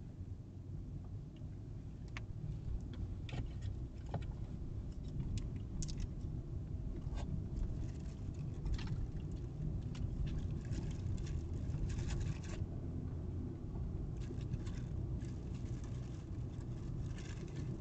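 Car cabin noise while driving: a steady low rumble of road and engine that grows a little louder over the first several seconds, with scattered light clicks and rattles.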